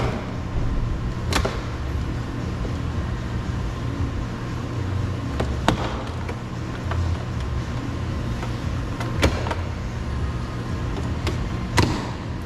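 Plastic retaining clips of a car door trim panel snapping loose as the panel is pried off with a clip puller and flathead screwdriver: several sharp snaps a few seconds apart, two close together near the end, over a steady low rumble.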